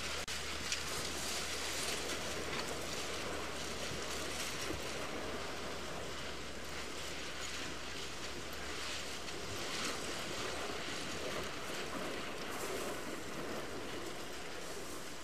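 A herd of Pacific walruses stampeding off a rocky beach into the sea: a continuous rush of surf and splashing, with surges as groups of animals plunge into the water. It is a disturbance stampede of the haulout.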